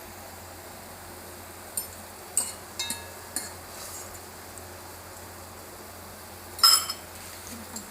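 Light clinks and knocks of kitchen utensils and cookware, a handful in the first few seconds, one ringing briefly, then a louder, harsher clatter near the end.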